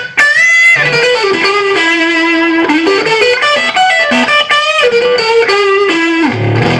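Electric guitar played through the overdriven dirty channel of a small tube amp into a single 12-inch Celestion speaker: a sustained single-note lead line with a bend near the start, ending on a ringing low chord.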